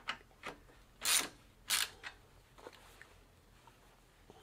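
Spanner working the saddle clamp nuts on a bicycle seat post: a few short scraping strokes, the two loudest a bit over a second in and about half a second apart, then stillness.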